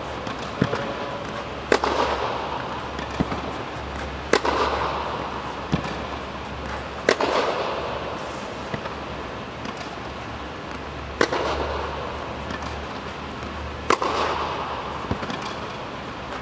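Tennis racket strings striking the ball on forehand drives: a sharp crack every two to three seconds, with softer ball bounces on the clay court in between.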